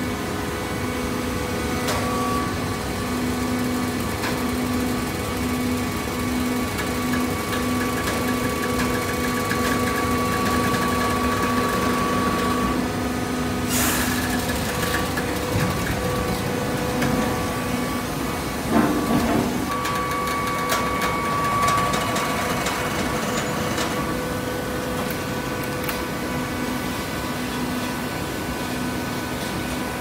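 Hydraulic baling press running: a steady machine hum with a low tone that pulses on and off, a sharp knock about 14 seconds in and a short clatter about 19 seconds in.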